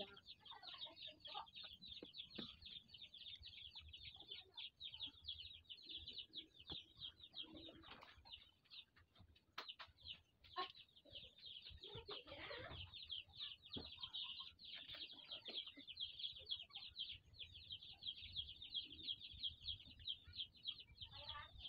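Chickens in the background: a continuous high, rapid peeping chatter, with one louder, lower call about twelve seconds in.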